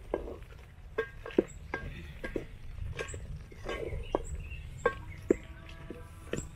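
Wooden spoon knocking against a metal cooking pot as liver stew is stirred, about eight irregular knocks, each leaving a short ring from the pot.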